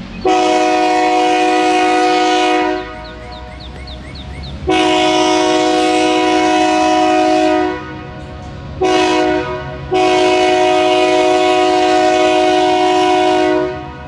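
EMD GP9 diesel locomotive's multi-chime air horn sounding four blasts: two long, one short, one long. This is the standard grade-crossing warning signal. The diesel engine's low rumble is heard between blasts.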